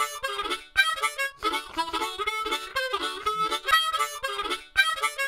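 Instrumental intro theme music: a melodic tune of short, sharply struck notes repeating in a steady pattern.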